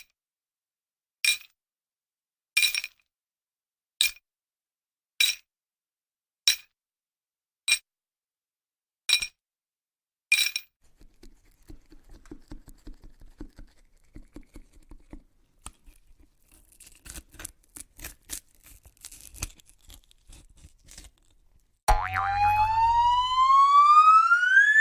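A run of sound effects: sharp, ringing metallic clicks about every 1.3 seconds, then a stretch of faint, irregular clicking and rattling, then a loud tone that glides steadily upward in pitch near the end.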